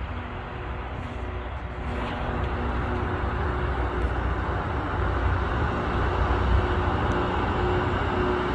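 Rail grinder's engines running as it approaches along the track: a steady low rumble with a faint steady hum, growing louder.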